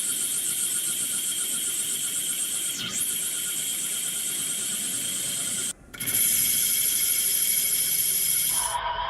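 Steady whirring hiss of a running CNC machine tool. It cuts out abruptly for a split second about six seconds in, then resumes louder with a different tone.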